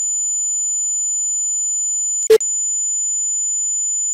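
Steady 7000 Hz sine test tone. It switches from the left speaker to the right about halfway through, with a brief sharp click at the changeover.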